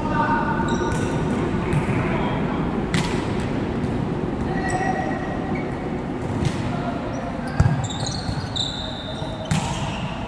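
Volleyballs being hit and bouncing off the court, several separate sharp smacks a second or more apart, echoing in a large sports hall. Players' voices can be heard between the hits.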